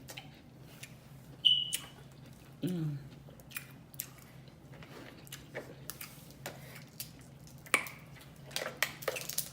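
Close-miked eating of a seafood boil in butter sauce: wet chewing with irregular sharp lip smacks and clicks, the loudest about one and a half seconds in.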